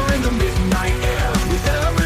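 Instrumental passage of a loud rock-style song with no vocals: a fast, driving low beat under a lead melody with bending notes.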